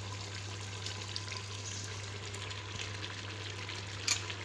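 Chicken curry sizzling and simmering in an open pressure cooker on a gas stove: a steady hiss over a constant low hum, with one brief click near the end.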